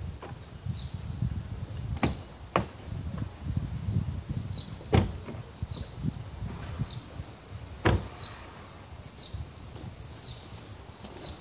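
Hyundai Sonata (LF) driver's door: sharp latch clicks about two seconds in as it is unlocked and opened, then loud knocks as it is swung and shut, the last about eight seconds in. A bird chirps over and over.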